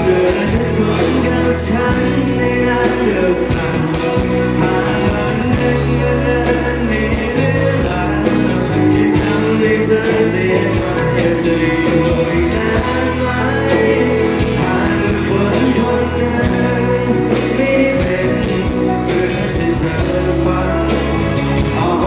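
Live band playing a pop-rock song, with drums, bass and electric guitars, and men singing over it.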